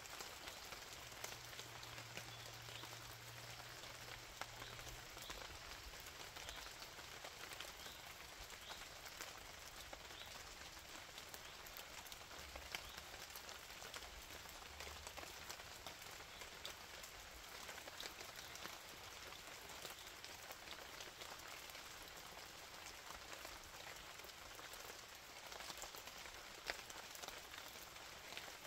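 Faint, steady rain, with many small drop ticks scattered through it.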